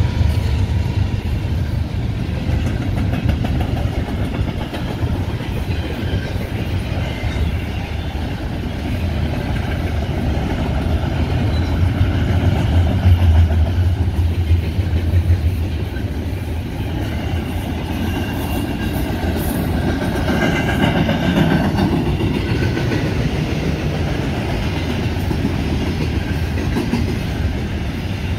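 Double-stack intermodal well cars of a freight train rolling past close by: a steady, loud rumble of steel wheels on the rails, with a higher metallic ring from the wheels coming and going about two-thirds of the way through.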